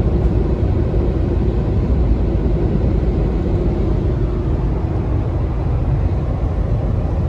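Suzuki S-Presso cruising at highway speed, heard from inside the cabin: a steady low rumble of road and engine noise with a faint constant hum.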